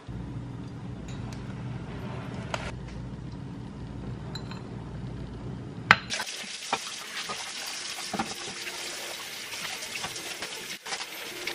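A metal spoon gives a few light clinks against a small glass bowl while stirring, over a low steady hum. About six seconds in, a kitchen tap is turned on and water runs steadily, splashing onto a glass mixing bowl in a stainless steel sink.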